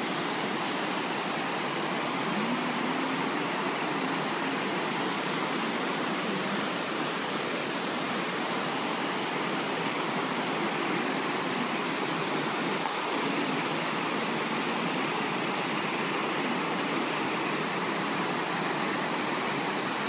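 Fukiware Falls: river water pouring over a broad rock ledge into a gorge and sheeting across the rock shelf in front, a steady, even rush of water.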